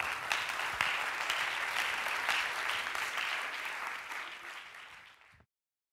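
Audience applauding, a dense patter of many hands clapping that eases off slightly and then cuts off abruptly near the end.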